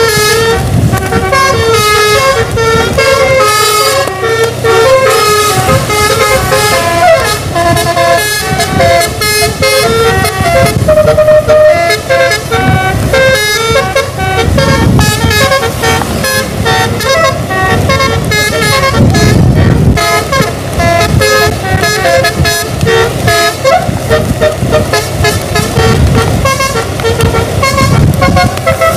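A bus's musical air horn (telolet) playing a fast melody, with the notes changing in quick steps, over the low rumble of vehicle engines.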